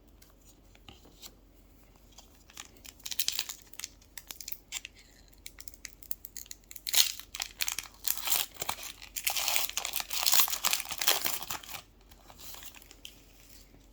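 Foil booster pack being torn open and its wrapper crinkled, in a few rustling bursts, the longest a couple of seconds near the end.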